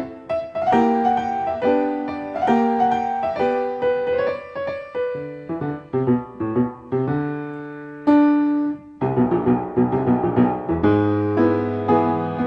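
Piano accompaniment music: a light tune of struck notes and chords, turning about nine seconds in to fuller, lower chords played in quick repetition.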